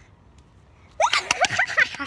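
Girls' excited high-pitched squealing, breaking out suddenly about a second in with rising, wavering cries, mixed with a few sharp hand claps, as one wins a round of rock-paper-scissors.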